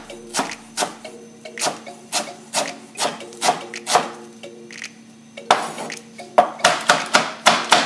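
Chef's knife chopping fresh cilantro on a wooden cutting board: sharp knocks of the blade on the wood, about two a second, quickening to about four a second and getting louder some five and a half seconds in.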